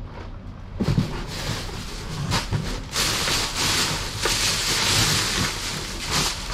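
Plastic bags and packaging rustling and crinkling as someone rummages through a bin. The noise starts about a second in and grows louder midway.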